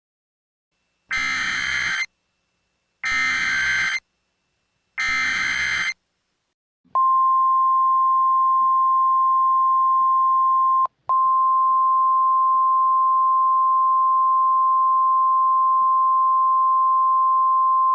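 A simulated Emergency Alert System header: three one-second bursts of buzzing SAME digital data, a second apart. About seven seconds in, the NOAA Weather Radio 1050 Hz warning alarm starts as one steady high tone, with a brief dropout near eleven seconds.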